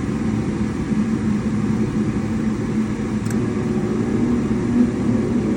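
Rheem gas furnace running after start-up, a steady mechanical hum with a low, even drone from its blowers. One short tick a little past halfway.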